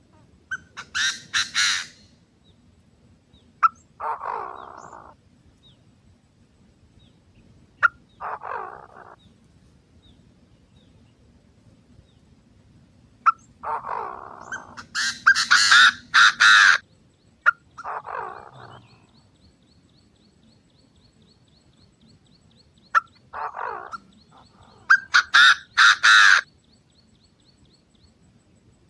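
Lure recording of male and female Chinese francolins calling. Bouts of high, rapid harsh notes alternate with shorter, lower-pitched calls, with pauses of a few seconds between them.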